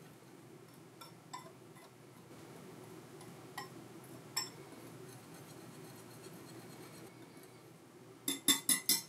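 Wire whisk stirring flour and cocoa powder in a glass bowl: a faint soft scraping with an occasional clink of the wires on the glass. Near the end comes a quick run of about five sharp clinks of the whisk against the bowl.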